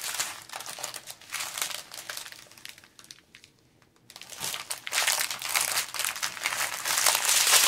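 Small plastic bags of diamond painting drills crinkling as they are picked up and handled. The crinkling pauses briefly about three seconds in, then comes back denser and louder from about four seconds in.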